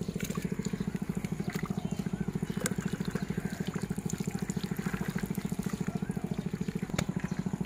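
A small engine running steadily, with a fast, even beat.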